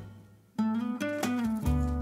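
Background music of plucked guitar notes, dying away briefly and starting again about half a second in.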